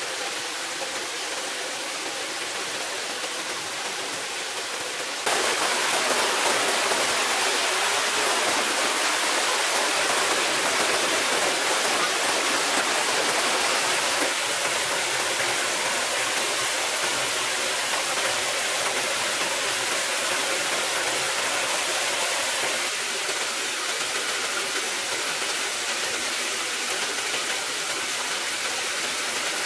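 A forest stream running over rocks: a steady rush of flowing water, louder from about five seconds in.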